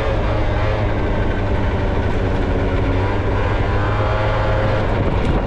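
A 50cc scooter engine runs steadily while the scooter is ridden at a constant speed. There is a loud low rumble, and the engine tone holds at one pitch without revving up or down.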